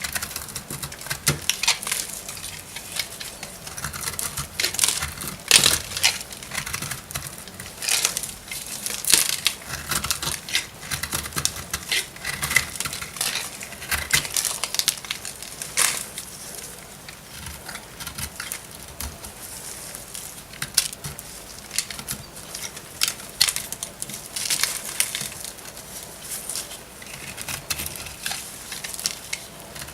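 Very dry bar soap being cut with a blade: a steady run of crunchy crackles and short scraping cuts, irregular and high-pitched.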